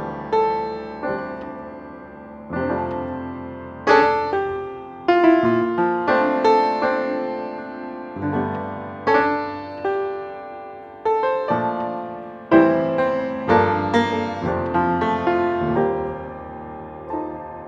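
Background music: a slow solo piano playing single notes and chords, each struck note ringing out and fading.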